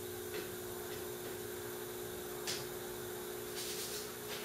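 Steady hum with a constant hiss from a small CNC milling machine's setup, idle before a cut, with a few light clicks as its flexible coolant hose is bent into place.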